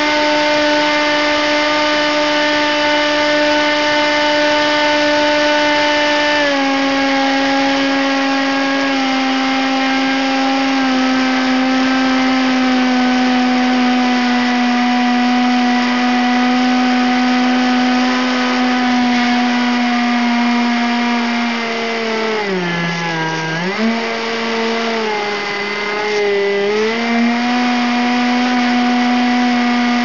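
RC model plane's electric motor and propeller, heard from the onboard camera, running with a steady high whine. The pitch steps down slightly about six and nine seconds in and slowly sags. In the last eight seconds it dips sharply and recovers twice.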